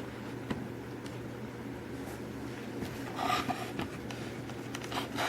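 Faint handling noises from a die-cast toy car being shown by hand: a few small clicks and a brief rustle about three seconds in and again near the end, over a steady low room hum.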